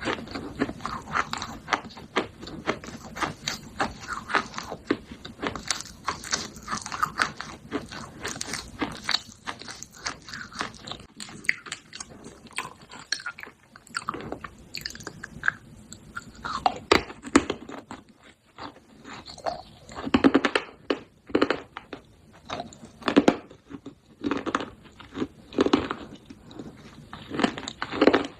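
Pieces of baked clay pot crunching as they are bitten and chewed close to the microphone. There is a quick, dense run of small crunches at first, then slower, louder bites in the second half.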